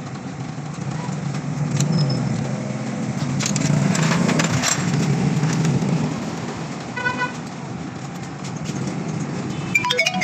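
Passing road traffic: a vehicle engine hum that grows louder in the middle and fades, with a short horn toot about seven seconds in.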